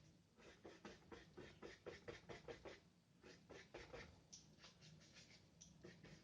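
Faint paintbrush strokes of gouache on paper: quick, short scratchy strokes about four a second, pausing briefly about halfway through, then continuing more sparsely.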